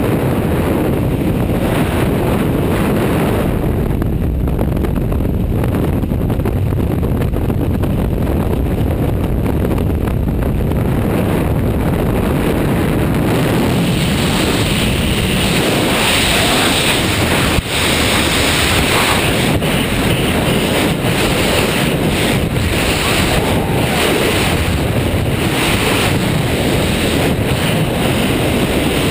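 Freefall wind rushing over a helmet-mounted camera's microphone: a loud, steady roar that turns brighter and hissier about halfway through.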